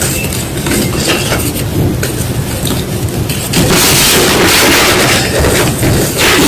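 Close-up crunching and crushing of white gym chalk, many quick gritty crunches in a row, turning louder and denser a little past halfway.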